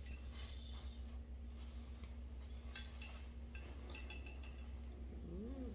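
Faint scattered small clicks and clinks over a steady low hum, with a short rising-and-falling voiced sound near the end.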